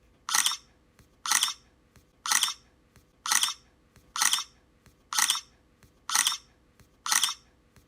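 Camera shutter clicks, eight in a row about a second apart, each a quick double click.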